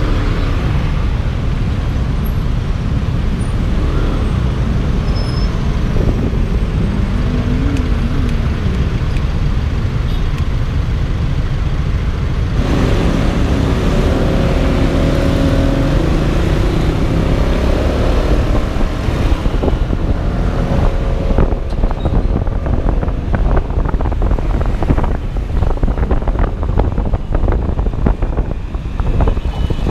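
Road traffic heard from a moving scooter: a steady rumble of nearby car, jeepney and motorcycle engines around the rider. In the second half, gusty wind buffets the microphone as the scooter rides along the open road.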